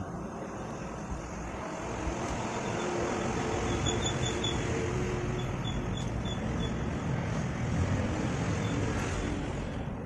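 Steady road traffic noise that swells a little in the middle, with a faint steady engine tone for a couple of seconds.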